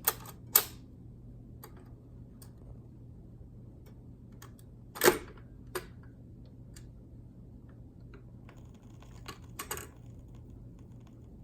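Clicks and clunks of a Panasonic SD84 phonograph's record changer mechanism cycling, its cam gear and pivots freshly cleaned and re-lubricated; the loudest clunk comes about five seconds in, with a pair of clicks near the end, over a steady low hum.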